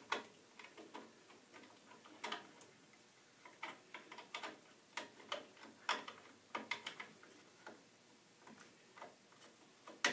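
Light, irregular clicks and taps of wire connectors being pushed onto the terminals of a furnace gas valve, with small knocks of hands working against the furnace.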